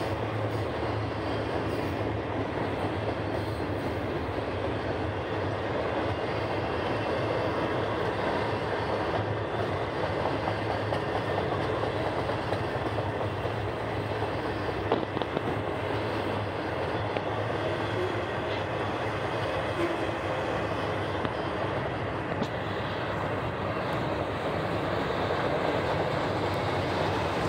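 Double-stack intermodal train's well cars rolling past: a steady noise of steel wheels on the rail, with a few sharp clacks about halfway through.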